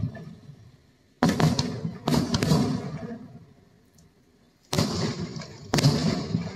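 Aerial fireworks bursting: four loud bangs, two close together after about a second and two more near the end, each trailing off in a rumbling, crackling echo.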